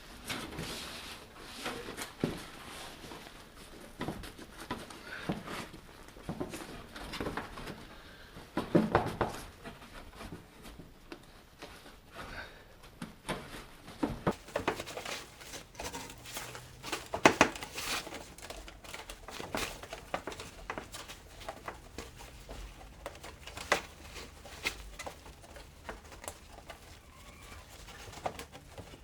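Hands fitting the plastic belt housing cover and rubber intake boots of an ATV back together: scattered clicks, knocks and rustling, with a few sharper knocks, the loudest near the middle.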